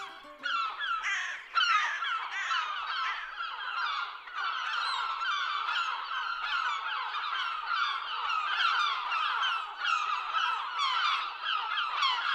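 A large flock of birds calling all at once: a dense, unbroken chorus of many short overlapping calls, starting about half a second in.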